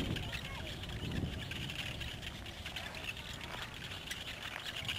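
Rural outdoor ambience: birds chirping over a steady high-pitched buzz, with a low rumble that is strongest in the first second or so.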